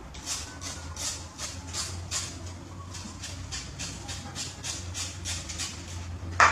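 Knife blade scraping a piece of peeled food in quick repeated strokes, about three to four a second, over a low steady hum; one sharp knock near the end.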